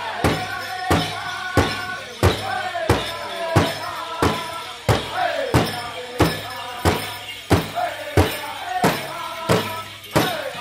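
Powwow drum group: a big drum struck in a steady, even beat, about three strokes every two seconds, with the singers' high, wavering voices over it.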